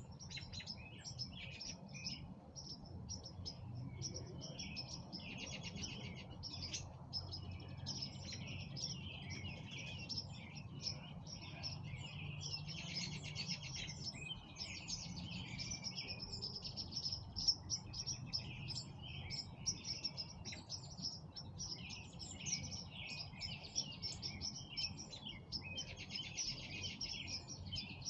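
Songbirds chirping and singing continuously, many short overlapping calls and trills, over a low steady rumble.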